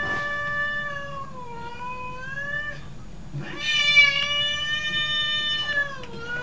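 Cat meowing in two long, drawn-out calls of about three seconds each, the first sagging then rising in pitch before it stops, with a short gap between them and a third call starting near the end.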